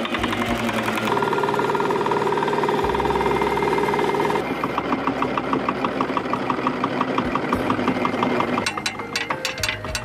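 Small fishing boat's engine running with a rapid, regular knocking chug. Its tone shifts a few times, and sharper clicks come in near the end.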